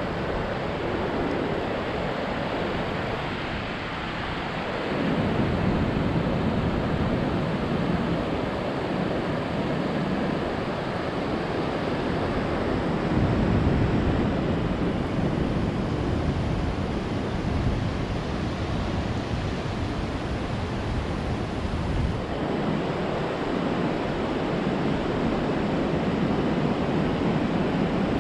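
Ocean surf breaking and washing up a beach: a continuous rush of noise that swells as each wave comes in, roughly every eight or nine seconds.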